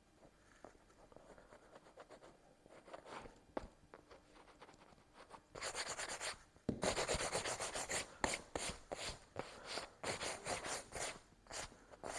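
A pencil eraser rubbing back and forth on a motorcycle seat cover, rubbing out the silver marking lines left by a leather pen. It starts as faint handling sounds, then about halfway through becomes a run of quick rubbing strokes, about three a second.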